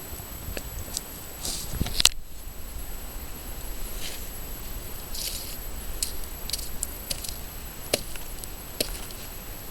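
Wood fire crackling, with irregular sharp pops and snaps, the loudest about two seconds in, and a few short hissing puffs.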